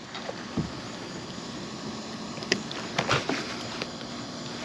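Steady faint outdoor background hiss, broken by a handful of brief knocks and clicks from handling things in a kayak.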